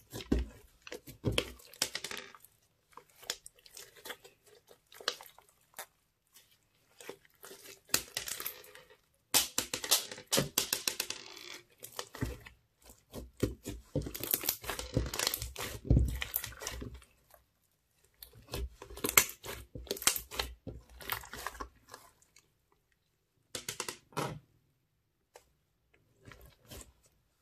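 Hands kneading, folding and pressing a mass of crunchy slime studded with small beads, giving irregular runs of crackling and popping with short pauses between them.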